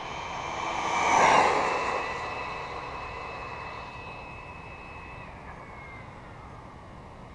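Arrma Typhon 3S BLX RC buggy's brushless motor and drivetrain whining at full throttle, at about 68 mph. It passes close by about a second in, then fades away down the road as its high whine slides down in pitch.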